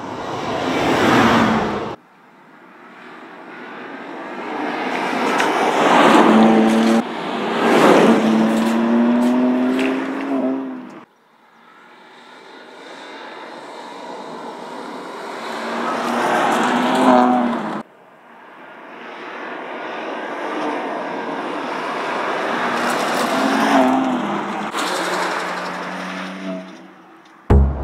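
BMW M2 Competition's twin-turbo 3.0-litre inline-six engine revving hard as the car drives past, several separate drive-bys in a row: each one swells as the car approaches, peaks as it passes, then cuts off abruptly. Electronic music starts right at the end.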